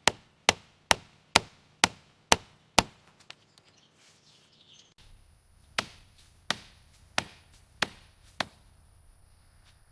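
Sharp, evenly spaced blows of a carving tool into teak wood: seven strikes at about two a second, a pause, then five more a little slower, with a faint steady high tone behind the second run.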